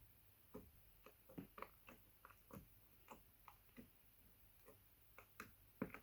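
Thick slime squished and poked close to a microphone, giving a string of small irregular clicks and pops.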